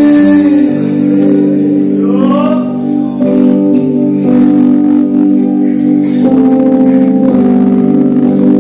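Male singer performing a Mizo gospel song over long held keyboard organ chords.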